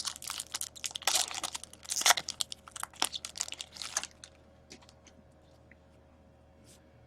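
Foil trading-card pack wrapper crinkling and tearing as it is opened, a dense crackle for about four seconds, followed by a few faint clicks.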